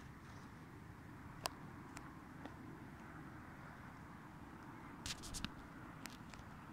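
Footsteps through leaf litter and twigs: a few sharp clicks and crackles over a faint, steady low rumble, with a cluster of crackles about five seconds in.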